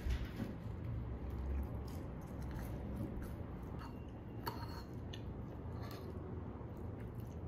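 Close-up eating sounds: chewing a bite of toast, with a few short clinks of a metal fork against a ceramic plate in the second half.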